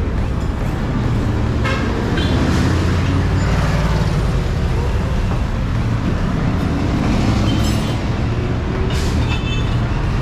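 Steady low rumble of road traffic passing by.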